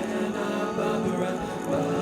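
Music with voices singing.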